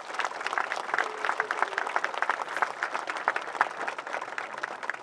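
Crowd applauding, many hands clapping densely and steadily.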